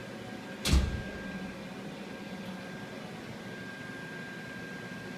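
A single sharp knock less than a second in, over a steady mechanical hum with a faint high whine, like a fan or ventilation unit running.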